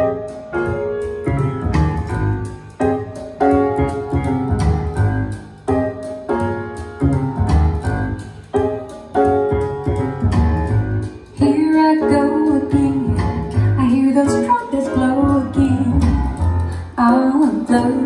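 Sonus Faber Omnia all-in-one speaker playing a jazz vocal track, recorded through a phone's microphone: piano chords with bass, and a female voice begins singing about eleven seconds in.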